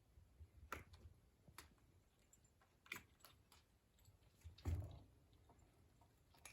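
A kitten playing alone with a toy: a few quiet, scattered light taps and clicks, with a heavier tap and soft thump about four and a half seconds in.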